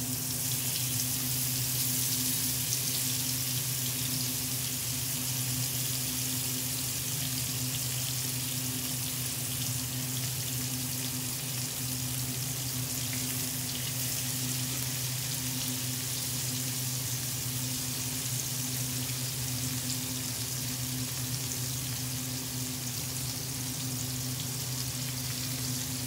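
Flour-dusted tilapia fillets sizzling steadily in hot vegetable oil as they are laid into a large frying pan and pressed down, over a steady low hum.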